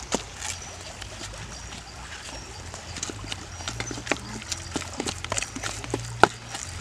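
Wooden pestle knocking and mashing in a coconut-shell bowl, pounding grated coconut with chili paste: irregular knocks, with a louder one about six seconds in.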